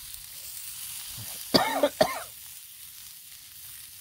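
Pork ribs sizzling steadily on a hot Blackstone flat-top griddle. A short, loud cough-like vocal sound breaks in about one and a half seconds in.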